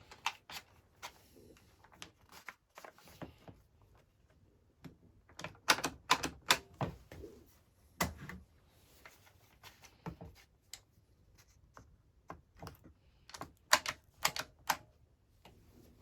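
Clamps being fitted onto the two halves of a 3D-printed PLA mold: a string of irregular sharp clicks and knocks, bunched in several quick clusters with quiet gaps between them.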